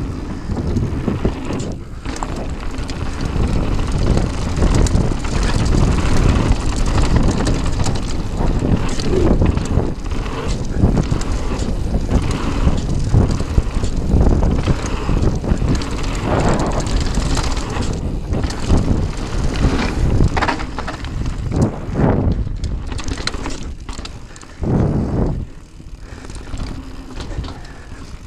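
Mountain bike descending a dirt trail at speed, heard from a camera on the bike: wind buffeting the microphone over tyre rumble, with the bike knocking and rattling over bumps and a heavier thud shortly before the end.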